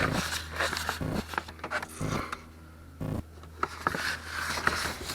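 Irregular scraping, rattling and clicking of a socket wrench and extension being worked around inside a pickup's door panel.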